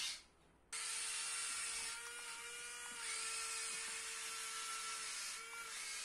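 Cruzer Speed Fury wall-climbing RC car's suction fan switching on suddenly about a second in, then running as a steady high-pitched whine with a slight waver while it holds the toy car to the wall.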